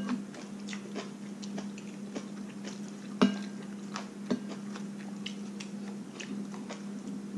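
Metal spoon clinking against a ceramic bowl as food is scooped up, with small chewing and eating sounds in between; the sharpest clinks come about three seconds in and just after four seconds. A steady low hum runs underneath.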